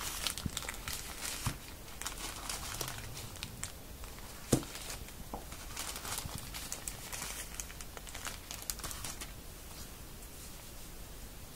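Thin clear plastic packaging bags crinkling and rustling as hands handle them, with one sharp knock about four and a half seconds in. The crinkling dies away near the end.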